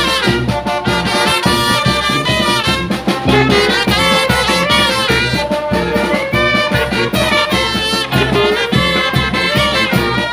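A Mexican-style banda, a brass band, playing loud music: horns carrying the melody over a steady drum beat and a low bass line.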